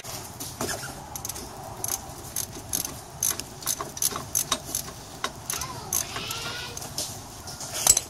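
Irregular metallic clicks and clinks of hand tools and bolts being worked at a motorcycle's shaft-drive final gear case, as its 14 mm mounting bolts are taken off.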